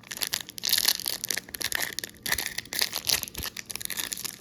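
A hockey trading card pack's wrapper is being ripped open and crinkled by hand, making a dense run of irregular crackles and tearing.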